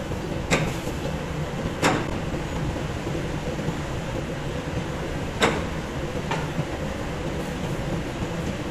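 Steady mechanical rumble of flour-mill machinery running, with a faint steady hum in it. Three sharp knocks break through, and a fainter fourth.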